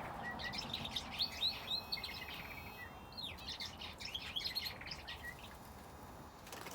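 Small aviary birds, finches and a canary, chirping in quick, high bursts: two busy spells of chatter in the first two-thirds, thinning out near the end, over a steady background hiss.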